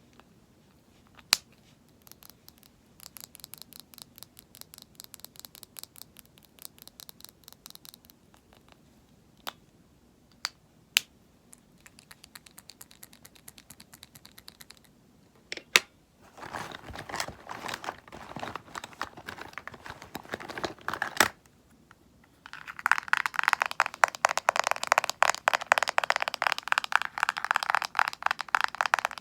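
Close-miked cosmetics being handled for ASMR: a few single sharp clicks between runs of fast tapping and scratching, which grow denser and louder in the second half.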